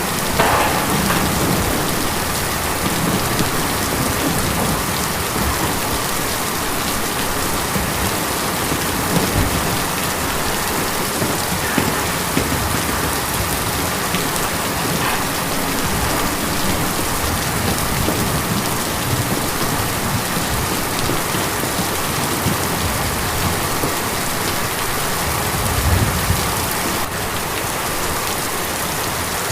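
Steady rain drumming on a tin roof, a dense, even patter of drops.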